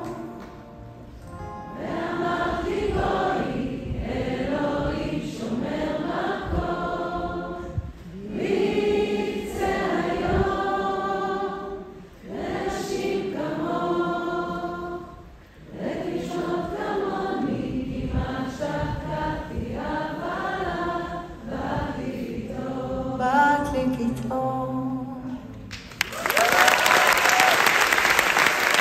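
Voices singing a Hebrew song together in harmony, in phrases with short breaks between them. About 26 seconds in, the audience breaks into loud applause.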